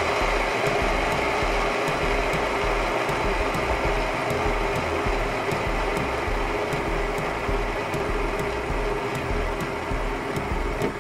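Two fidget spinners spinning freely on a tabletop: a steady whirring hum from their bearings, with a regular low throb beneath it.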